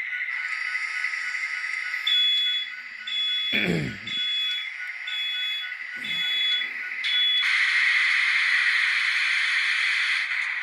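Sound-decoder diesel locomotive sounds from the tiny speakers of N scale models starting up: a steady high-pitched engine hum with a row of short high beeps, a brief thump about three and a half seconds in, then a loud hiss from about seven seconds in.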